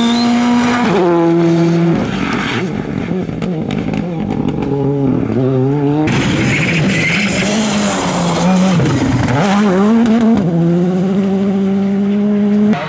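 R5 rally cars' turbocharged 1.6-litre four-cylinder engines at full throttle, revving hard and shifting gears, the pitch dropping at each upshift and climbing again as several cars pass.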